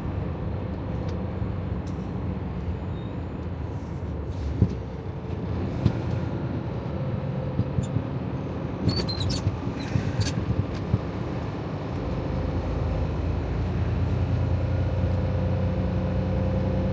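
Freightliner Cascadia semi truck's diesel engine running steadily as the truck rolls slowly, heard from inside the cab. The engine gets louder from about twelve seconds in, with a few sharp clicks along the way.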